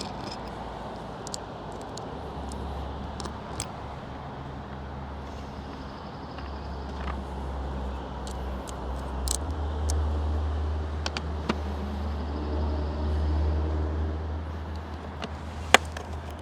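A motor vehicle's engine running, rumbling louder and with a steadier tone from about ten seconds in, under scattered small clicks and taps.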